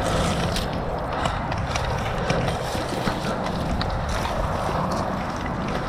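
Footsteps of a person moving at pace over outdoor ground, irregular short knocks and clicks over a steady background noise.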